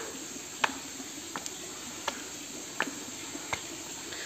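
Footsteps climbing stone stairs: a sharp tap about every two-thirds of a second, six in all, over a faint steady hiss.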